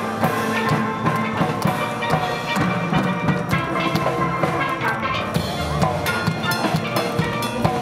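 Steel pan band playing a tune, many pans ringing together with frequent struck notes over drums.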